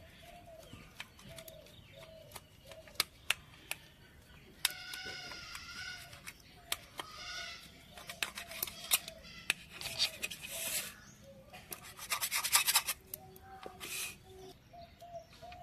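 Knife cutting through a fried lentil-and-egg omelette on a stainless steel plate: sharp clicks as the blade taps the plate, scraping through the crisp crust, and a quick run of clicks about three-quarters through. Birds chirp in the background.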